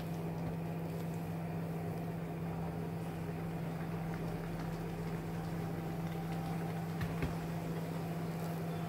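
Steady hum of a kitchen appliance motor, with one strong low tone. A couple of faint clicks come about seven seconds in.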